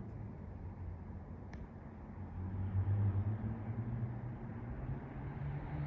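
Airbus A350-900's Rolls-Royce Trent XWB jet engines heard as a low, steady rumble, swelling a little about halfway through.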